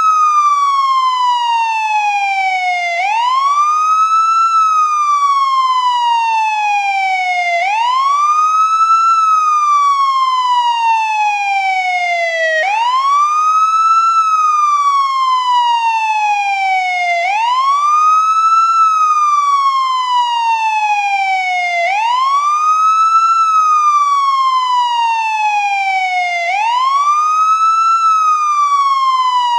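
American police siren on its wail setting: the tone sweeps quickly up, then falls slowly back down, repeating about every four and a half seconds.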